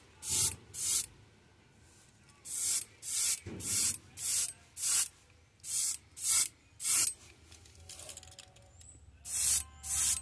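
Airbrush spraying paint in short hissing spurts, a little under two a second, with a brief pause late on before the spurts resume.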